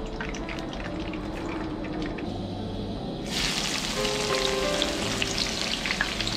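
Hot oil in a wok crackling lightly, then about three seconds in sliced red onions go into the oil and it breaks into loud, dense sizzling that stays on.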